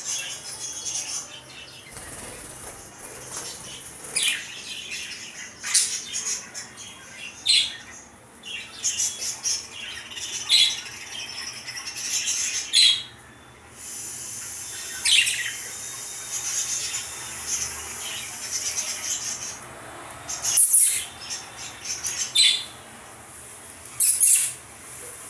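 Lovebirds and finches calling together: a continuous high chatter of chirps, broken every second or two by loud, sharp, shrill calls.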